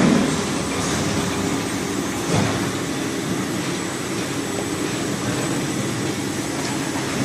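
Squid-processing machine running steadily with a continuous mechanical clatter, with a thump at the start and a lighter one about two and a half seconds in.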